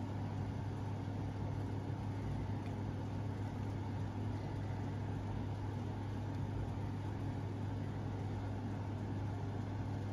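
A steady low machine hum, even and unchanging, with no other sounds over it.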